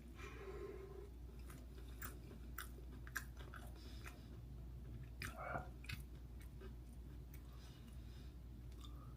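Close-up chewing and biting of a steamed dumpling eaten by hand, with scattered wet mouth clicks.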